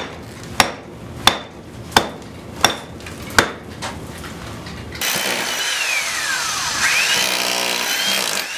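A hammer striking a concrete cinder block about six times, sharp blows roughly one and a half a second apart. About five seconds in, an electric drill starts boring into the block, its motor whine falling and then rising in pitch.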